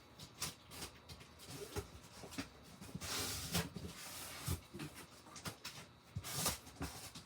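A cardboard shipping box being opened and handled: scattered clicks and knocks of cardboard and packaging, with a longer rustle about three seconds in and a short one near the end.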